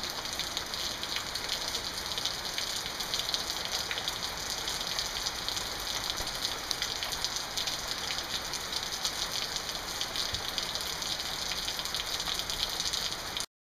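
Steady rain falling and pattering on surfaces, a dense, even hiss full of fine crackles that cuts off suddenly near the end.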